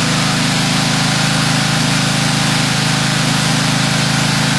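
A motor engine running steadily at an even speed.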